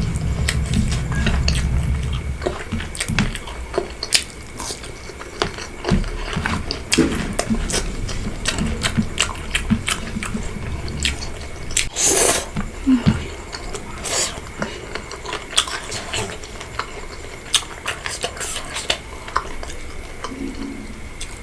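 Close-miked eating sounds: wet chewing and mouth smacks with many short scattered clicks, and one louder noisy burst about twelve seconds in.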